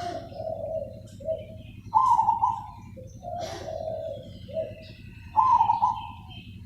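Zebra dove singing its cooing call: phrases of a loud higher coo followed by a run of lower, stuttering coos, repeated about every three and a half seconds.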